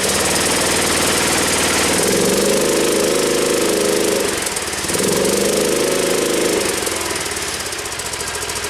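Replacement engine of a John Deere ride-on mower running, just started after its fitting. Its speed drops and picks back up about four and a half seconds in, then eases off again near the end.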